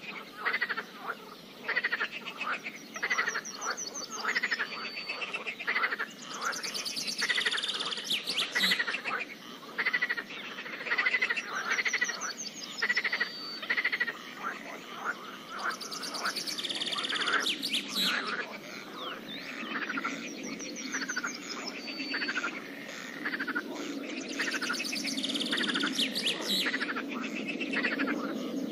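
Chorus of frogs croaking at a pond, many short repeated calls overlapping, with a few fast high trills among them.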